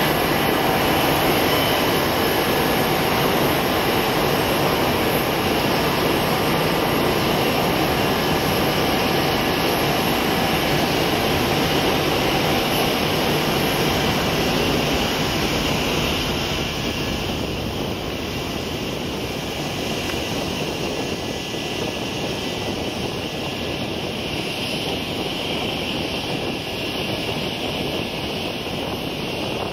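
Boeing C-17 Globemaster III's four Pratt & Whitney F117 turbofan jet engines as the airliner-sized transport lands: a loud, steady jet noise that drops off somewhat about sixteen seconds in as the aircraft rolls out.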